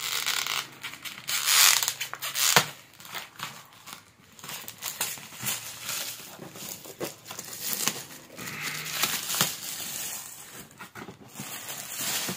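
Clear plastic shrink-wrap being torn and pulled off a hard plastic tool case, a rustling tear full of small clicks. It is loudest about two seconds in and again around nine seconds.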